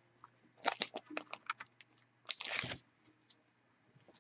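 Irregular light clicks and taps, with a brief rustle about two and a half seconds in.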